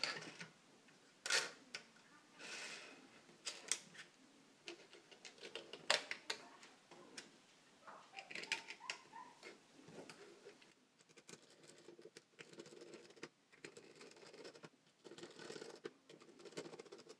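Small 3D-printed plastic clamp parts clicking and knocking as they are handled, set down on a table and fitted together, with occasional rubbing of plastic on plastic. Near the end, brief scraping as a screwdriver turns a small screw into the plastic body.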